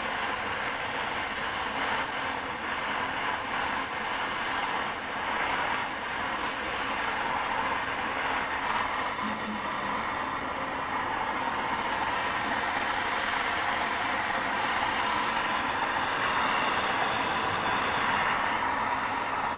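Handheld soldering torch flame burning with a steady, even rush while heating a copper pipe and a valve's solder cup; it cuts off suddenly at the end.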